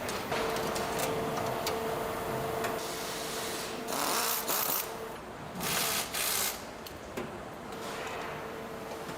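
A small workshop machine running with a steady whine that drops out for a few seconds and then returns, with two short hissing bursts about four and six seconds in.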